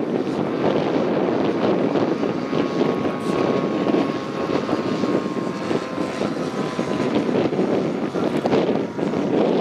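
Engine of a radio-controlled scale model plane flying overhead: a faint steady whine that sags slightly in pitch, under heavy wind noise on the microphone.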